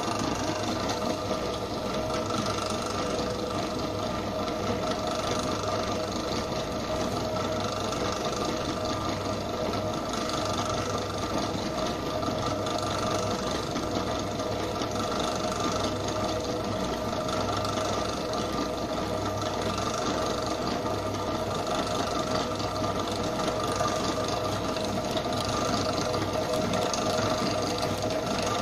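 Commercial bakery mixer running at a steady speed, its motor giving a constant whine while the beater churns butter and icing sugar into butter cream icing.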